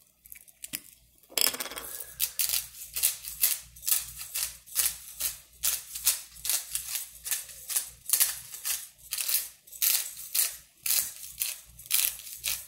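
Pepper grinder twisted by hand over the pan: a quick run of dry, crunching grinding rasps, about two a second, starting a second and a half in. It is a cheap grinder in which the peppercorns tend to get stuck.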